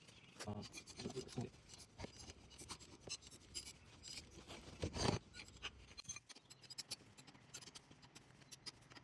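Faint scattered clicks and scrapes of brake parts being handled and fitted, with one louder knock about five seconds in.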